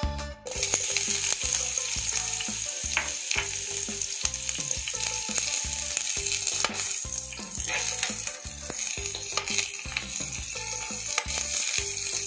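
Sliced onions sizzling in hot cooking oil in a nonstick frying pan. The sizzle starts suddenly about half a second in as the onions go into the pan, with sharp clicks and scrapes of a spatula against the pan as they are stirred.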